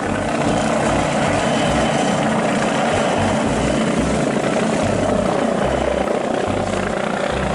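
A police MBB Bo 105 helicopter flying low, with steady rotor and turbine noise and a low throbbing underneath.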